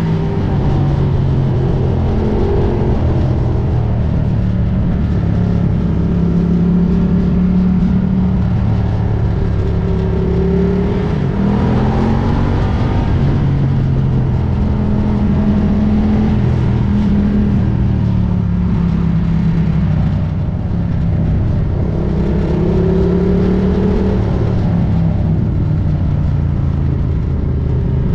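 Ducati Diavel's V-twin engine running loud and steady as the bike is ridden, its pitch rising and falling with the throttle several times.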